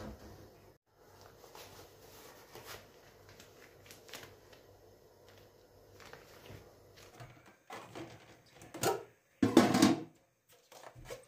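Faint rubbing and rustling of rubber kitchen gloves being pulled on, then a few louder knocks and clatters of a hard plastic basket being handled on a stone countertop, starting about eight seconds in.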